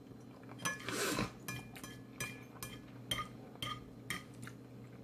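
An eating utensil clinking against a bowl: a string of light, ringing clinks about twice a second, with a longer scrape about a second in.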